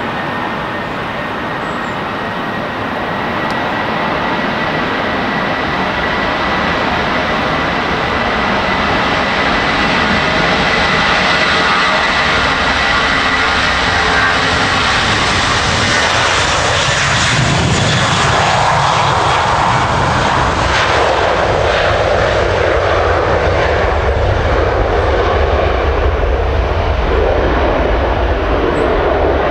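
Airbus A320-200 jet engines at takeoff power during the takeoff roll. A high fan whine rides over a rising roar, the pitch drops as the aircraft passes close by about halfway through, then a deep exhaust rumble takes over as it rotates and climbs away.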